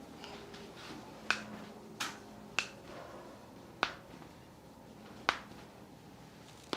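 Joint cracks during a chiropractic adjustment: about six sharp pops, irregularly spaced a second or so apart.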